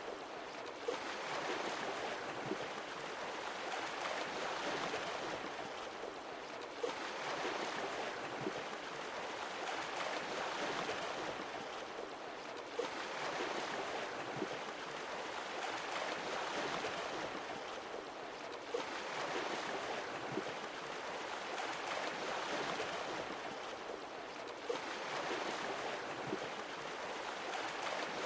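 Sea waves washing onto the shore, surging and receding about every six seconds, with a brief sharp peak as each surge begins.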